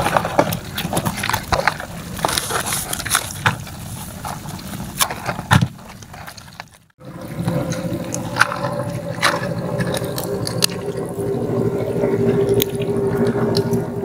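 Wet clicking, scraping and dripping of live shrimp and crabs being handled and moving about on a wet plastic sheet. After a short break, a steady low hum runs under the clicks.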